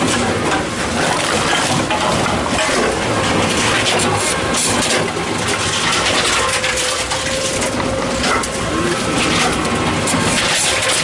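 Tomra T-63 HCp reverse vending machine running as plastic bottles are fed in: a steady mechanical noise from its conveyor belt, with many short knocks and clatters throughout.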